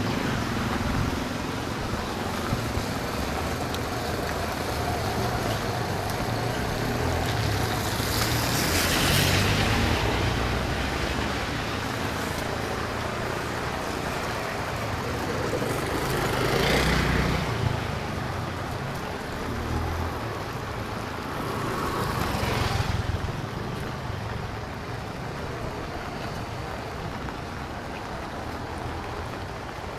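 Street traffic on a rainy day: motor vehicles passing, with three louder pass-bys, about a third of the way in, just past the middle, and about three quarters in, over a steady wash of road noise.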